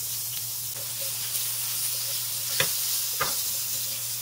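Sliced red onions sizzling in hot oil in a nonstick frying pan as they are stirred with a silicone spatula. There are two sharp knocks about two and a half and three and a quarter seconds in.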